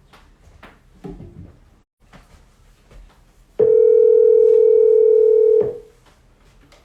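Telephone tone: one loud, steady, single-pitched beep lasting about two seconds, starting about three and a half seconds in, with faint small clicks and rustles before it.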